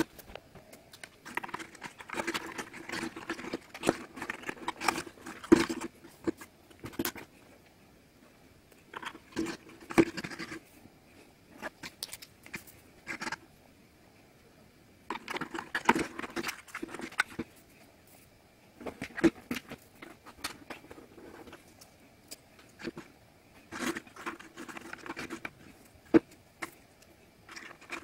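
Thin wooden pieces of a 3D puzzle house being handled and pressed together by hand: bursts of small clicks and scraping a second or two long, with short pauses between and a few sharper single clicks.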